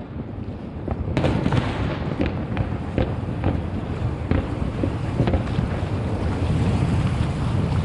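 Fireworks display heard from across the river: scattered bangs and crackling pops over a steady low rumble.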